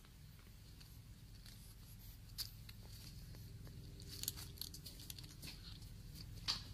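Cats eating, with a handful of sharp crunching clicks over a quiet background. The loudest click comes near the end.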